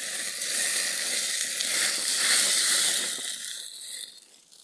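Meat sizzling in a hot pan over a campfire: a loud, steady frying hiss that dies away over the last second or so.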